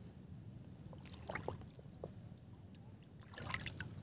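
Shallow sea water sloshing and splashing in two short bursts, about a second in and near the end, as someone wades waist-deep.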